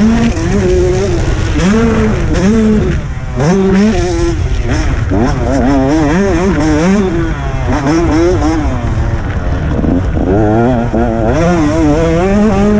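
Two-stroke motocross bike engine heard on board at race pace, its pitch climbing and dropping again and again as the rider works the throttle and shifts through the gears.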